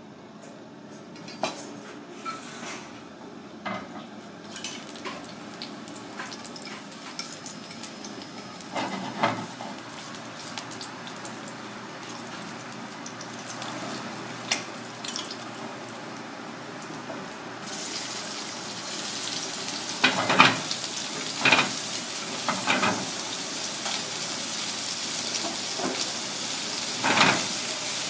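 A few knife taps on a cutting board, then garlic slices sizzling in hot oil in a wok over a gas flame. The sizzle becomes much louder and brighter about two-thirds through, with several clanks against the pan.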